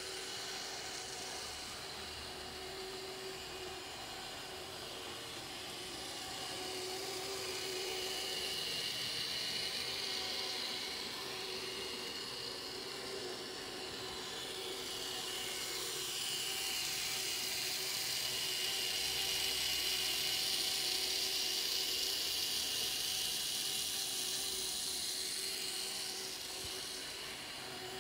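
Z-scale model train running on the track, its small electric motor giving a steady whirring whine that swells louder twice.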